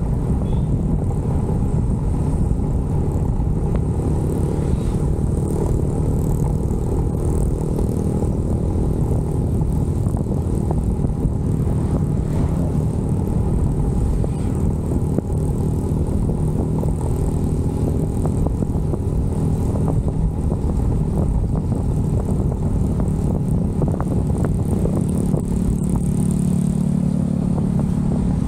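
Motorcycle engine running steadily while riding, with wind rushing over the camera microphone. The engine's hum grows louder in the last few seconds.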